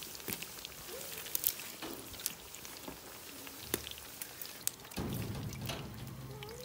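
Pakoras deep-frying in hot oil in a steel karahi over a wood fire: a steady sizzle with scattered sharp pops and crackles. A low rumble joins about five seconds in.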